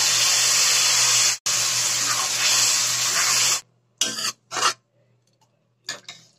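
Chickpea cooking water poured into a hot pan of fried masala, sizzling with a steady hiss that stops suddenly a little over three seconds in. Then a steel spoon clinks against the pan three times as the curry is stirred.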